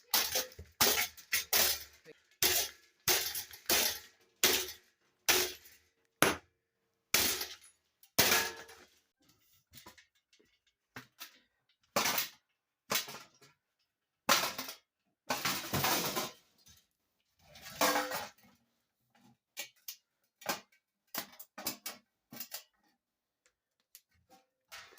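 An Aerospeed box fan being smashed: a long run of hard blows and breaking crashes. The blows come roughly one or two a second in the first half and further apart later, with a couple of longer crashing clatters around the middle.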